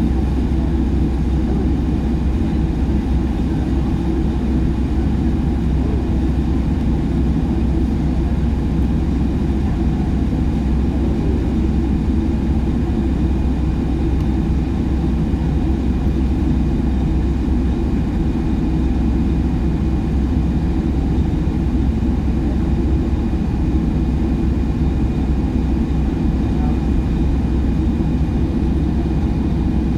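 Airliner cabin noise while taxiing to the runway: a steady low rumble from the engines and airframe, with a faint steady high whine.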